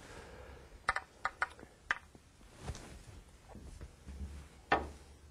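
Pool balls clicking and tapping on the table: a quick run of sharp clicks between one and two seconds in, and a duller knock near the end.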